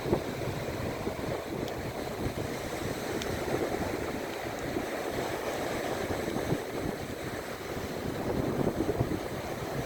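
Waves washing onto the shore in a steady, surging rush that swells a little around four seconds in and again near the end, with wind buffeting the microphone.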